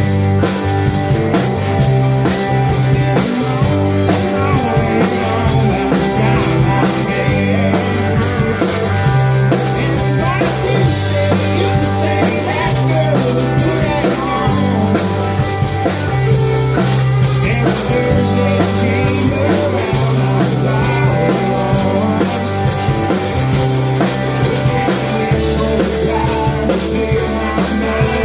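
Rock band playing live in a rehearsal room: a drum kit with cymbals keeps a steady beat under low instrumental notes, and a man sings into a microphone over it.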